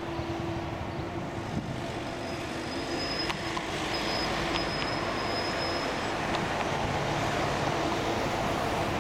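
Steady rumble of road and rail traffic around a large rail yard, growing slowly louder toward the end. A thin high whine sounds for a couple of seconds in the middle.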